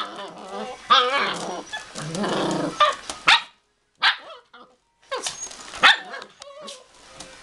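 7.5-week-old border collie puppies play-fighting: a run of short, high yips and barks, with a growl about two seconds in. The sound drops out briefly twice near the middle.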